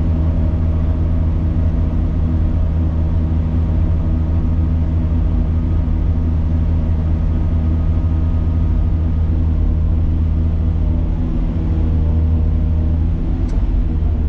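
Engine of a piece of heavy construction machinery running steadily: a loud, even, low drone that barely changes.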